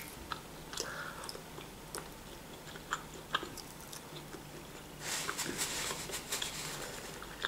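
A person chewing a mouthful of sausage and bread, with soft scattered mouth clicks and smacks. The chewing grows denser about five seconds in.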